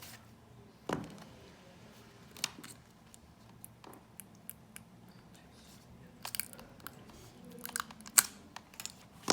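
Scattered light clicks and crackles of plastic being handled as a screen-protector installation tool is lifted off a phone, with a soft knock about a second in and a sharper click near the end.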